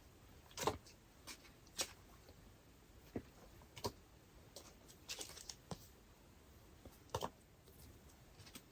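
Faint, scattered light clicks and crinkles of photocards in plastic sleeves being handled and shuffled, about a dozen short taps at irregular intervals.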